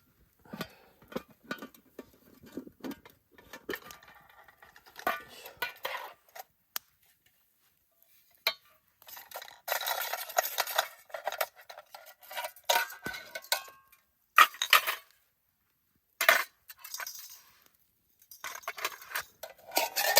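Metal cooking pots and camp cookware clinking and clattering as they are taken out and handled. There are irregular knocks with short metallic rings, and a few sharper bangs in the second half.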